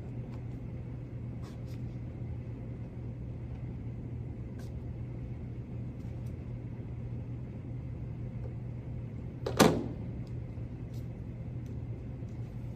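Steady low hum, with a few faint clicks and one sharp click or knock about nine and a half seconds in.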